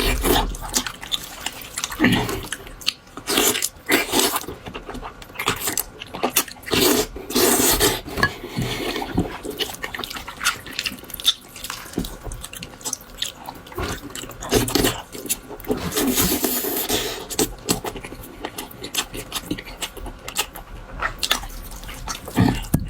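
Someone eating noisily: irregular chewing, smacking and slurping sounds, with short clicks and clatters.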